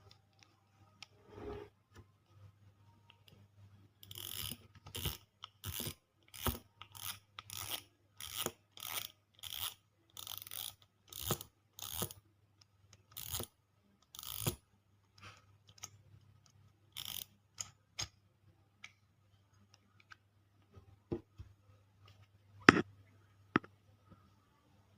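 Fishing reel being cleaned by hand: a run of about twenty short, evenly spaced rasping strokes, about two a second, followed by scattered small clicks and one sharp click near the end.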